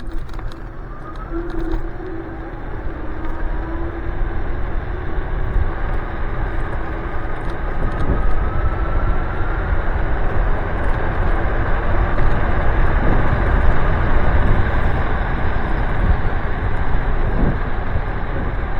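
Ride on a Nanrobot Lightning 2.0 dual-motor electric scooter: wind rushing over the microphone, growing louder as the scooter gathers speed, with a faint motor whine rising slowly in pitch in the first half.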